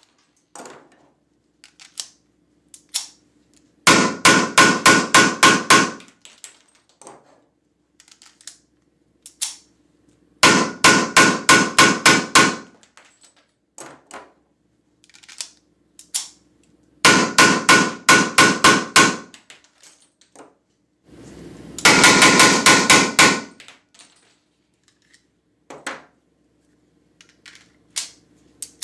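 Weihrauch HW94 blank pistol firing SK Schönebeck blank cartridges with its muzzle in the opening of a foil-wrapped box. It fires in four rapid strings of about ten shots each, at roughly five shots a second, with small clicks of handling between the strings. This is rapid fire for a 1000-round endurance test.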